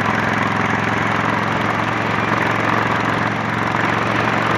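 Honda Shadow 750 V-twin with a 3-inch Torbal sport exhaust running steadily at highway cruising speed, under a steady rush of wind and road noise.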